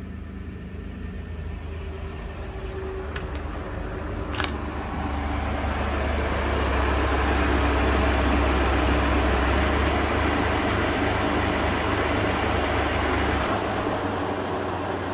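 Ford F-150's 2.7 EcoBoost twin-turbo V6 idling steadily through its stock exhaust, muffler still fitted. It grows louder over the first half and eases a little near the end, with a sharp click about four seconds in.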